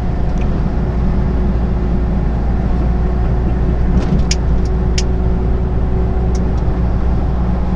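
Steady low drone of a truck's engine and tyres heard from inside the cab at motorway speed, with two brief ticks from the cab about four and five seconds in.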